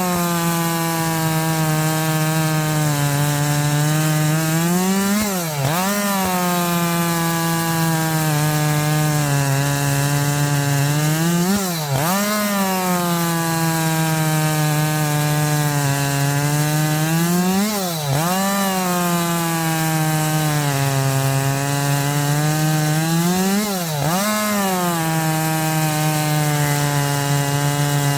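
Husqvarna 545 50cc chainsaw running at high revs, cutting through an 8 to 9 inch log. The engine note holds steady under load and swings sharply up and down in pitch about every six seconds, five times in all, as the bar breaks through and goes into the next cut.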